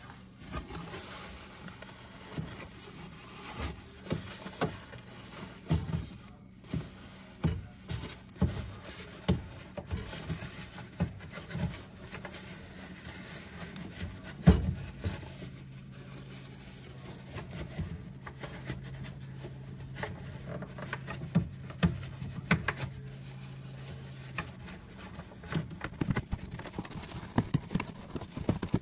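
Irregular clicks and knocks of hard objects being handled, with one loud knock about halfway. Right after it a low steady hum starts, runs for about ten seconds and stops a few seconds before the end.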